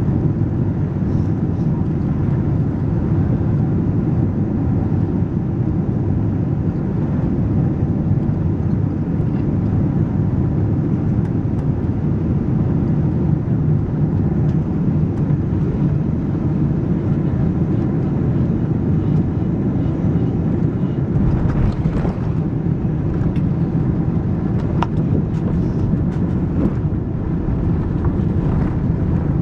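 Cabin noise of a Boeing 777-200ER with GE90 engines on final approach: a steady low roar of engines and airflow. About twenty seconds in, the sound turns rougher with knocks and rattles as the airliner touches down and rolls along the runway.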